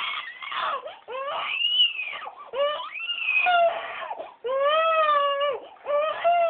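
Infant crying in pain: a run of loud wailing cries, about a second each, some arching up and falling in pitch, with a longer steady wail past the middle. The pain comes from her left foot being turned and held straight while a cast is put on and sets.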